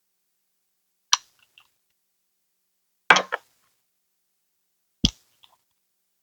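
Three sharp clicks or taps about two seconds apart, each followed by a fainter tick or two; the middle one is the loudest and longest.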